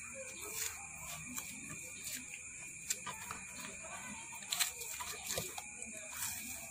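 Paper masking tape being pulled off its roll and wrapped around a transformer coil, with scattered crackles and clicks as it peels and is pressed down.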